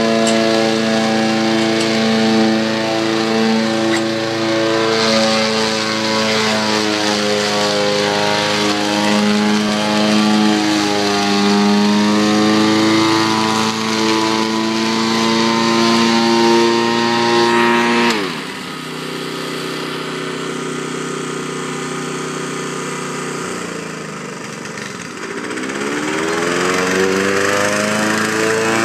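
Lawn mower engine running steadily. About eighteen seconds in its speed drops sharply and stays low, then climbs back up near the end.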